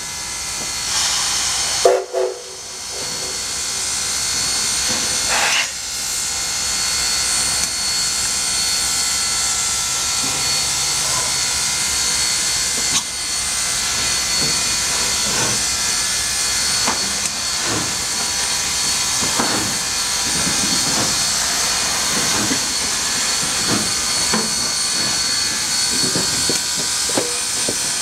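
Canadian Pacific 4-6-2 steam locomotive hissing steadily as it gets under way and rolls slowly closer. There is a brief loud burst about two seconds in and faint irregular knocks from about ten seconds on.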